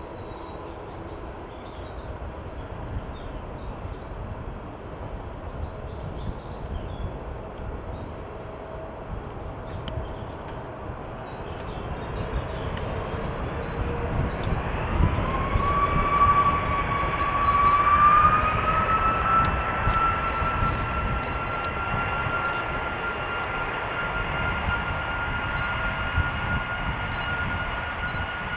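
Boeing 747-400 jet engines spooling up: a whine that rises in pitch about halfway through and then holds steady and high over a low rumble, growing louder as thrust comes on.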